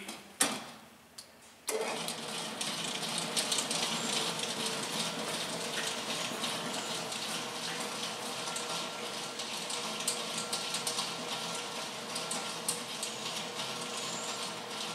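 Hobart A200T 20-quart gear-driven mixer starting suddenly about two seconds in, after a single click, then running steadily at third, its highest speed: a motor hum with a faint steady whine and many small clicks from the drive.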